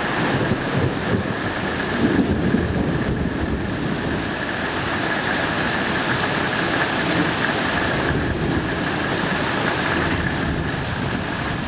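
Heavy rain falling steadily during a thunderstorm, with a low rumble of thunder underneath that swells slightly about two seconds in.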